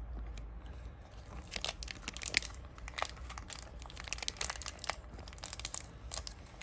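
Plastic packaging of a toy slime set being crinkled and torn, in quick irregular crackles.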